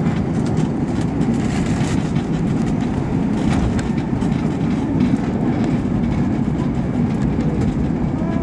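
Airbus A321 cabin noise while the aircraft rolls along the ground after landing: a steady, loud, low rumble from the wheels and airframe, with a few faint rattles.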